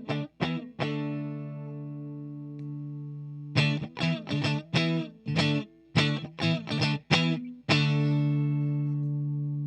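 Single-coil PRS Silver Sky electric guitar through an HTJ Works Valve Crystal 12AX7 tube preamp pedal into a 6L6 tube amp, lightly overdriven at the edge of breakup. A chord rings out for a couple of seconds, then a run of about ten short, choppy strums, then another chord is left to ring.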